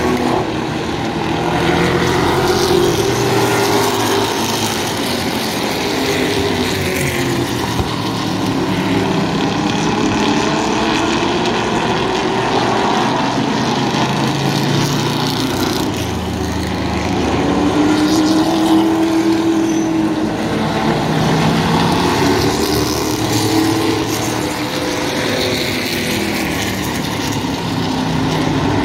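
A pack of vintage stock cars with V8 and inline-six engines lapping a short oval, the engine notes rising and falling over and over as the cars pass and go through the turns.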